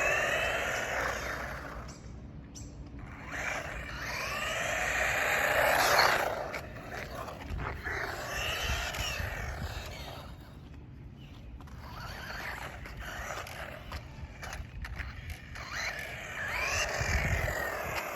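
Brushless electric motor of a 1:16 4WD RC car driven on its low-speed setting, its whine rising and falling with the throttle in about four bursts, loudest about six seconds in.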